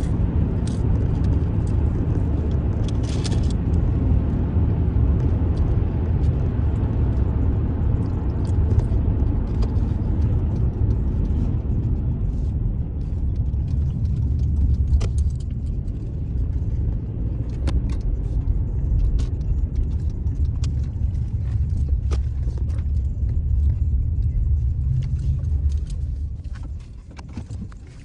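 Road and engine rumble inside a moving car's cabin, with small clicks and rattles; the rumble fades near the end as the car slows.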